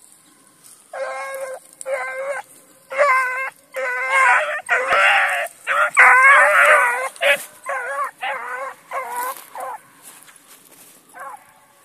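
Rabbit-hunting hounds baying as they run a rabbit's trail: a string of drawn-out bays, each about half a second to a second long, overlapping in the middle and stopping about ten seconds in.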